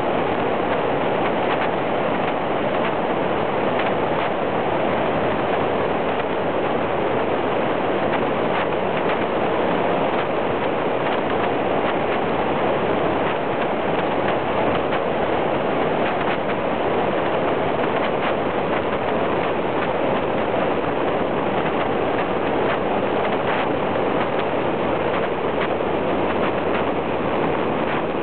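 Steady rush of wind and road noise from a camera mounted low on a motorcycle at cruising speed, with no clear engine note or changes in pace.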